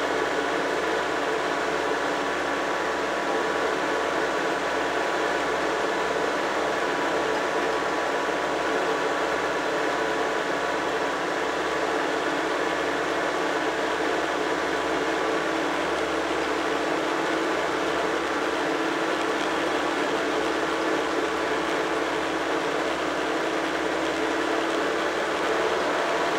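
Tractor engine running steadily under way at road speed, heard close to its upright exhaust stack, with an even, unchanging note.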